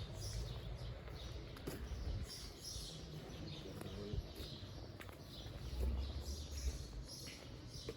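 Small birds chirping repeatedly in short high calls, over a low rumble that swells briefly about six seconds in.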